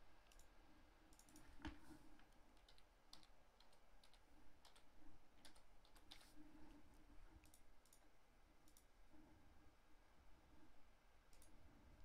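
Near silence broken by faint, scattered clicks of a computer mouse and keyboard keys, irregular and a second or so apart.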